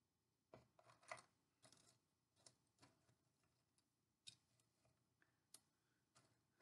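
Faint, irregular clicks and taps of cardboard jigsaw pieces being picked up, sorted and set down on a board, about a dozen small ticks spread unevenly.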